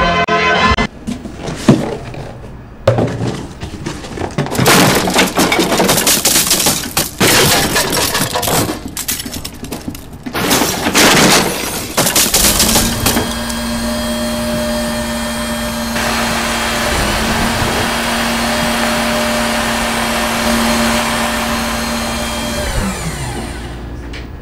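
A run of irregular crashing and breaking impacts, then a corded electric drill with a long bit running steadily for about ten seconds. It stops briefly partway through, starts again and winds down near the end.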